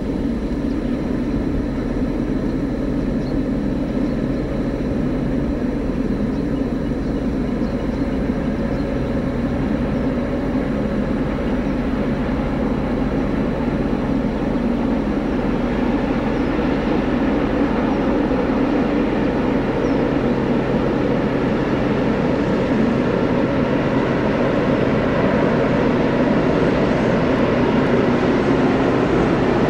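A vehicle travelling, heard from on board: a steady running rumble and hum with road or track noise, growing gradually louder over the second half.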